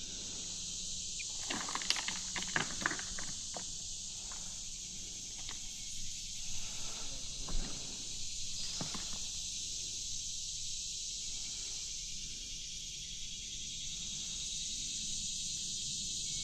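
A steady, high-pitched insect chorus, with scattered rustling and snapping of footsteps in dry leaves and brush, clustered about two seconds in and again around the middle.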